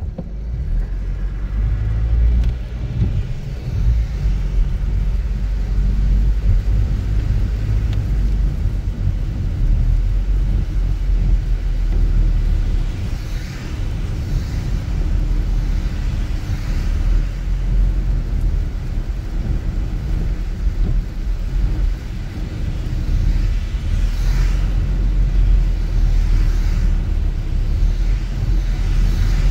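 A car driving: a steady low rumble of road and engine noise, with a few faint brief hisses in the second half.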